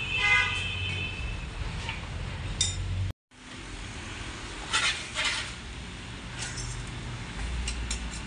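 Metal hand tools clinking and tapping against a dismantled tractor's oil-brake and rear-axle housing, as separate sharp clicks, the clearest about five seconds in. A short horn-like toot with a falling run of notes sounds in the first second.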